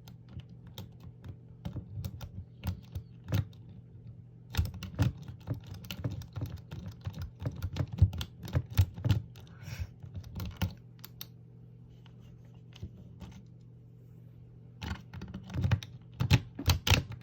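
Rake pick scraping in and out of the cylinder lock of a wooden tool chest while the cylinder is held under tension, making fast runs of light clicks as it jostles the pins. The clicking comes in bursts with a quieter lull about two-thirds of the way through. The lock is dry, with no lubricant in it.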